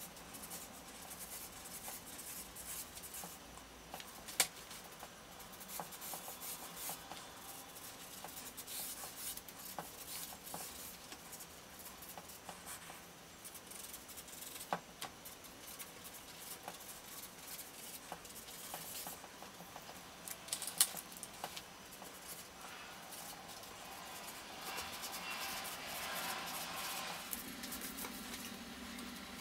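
Coloured pencil and marker strokes scratching and rubbing on paper, with a few sharp clicks.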